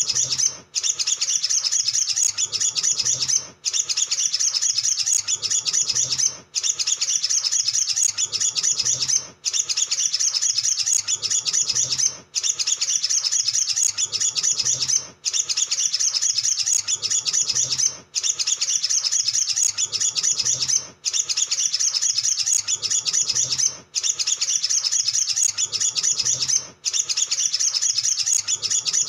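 Male olive-backed sunbird singing a fast, shrill twittering song of rapid high chips without pause. It breaks off for a moment about every three seconds, at an even, repeating spacing.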